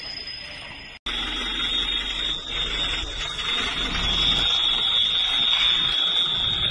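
A continuous high-pitched electronic alarm tone starts after a brief gap about a second in and holds one steady pitch over a low rumbling noise.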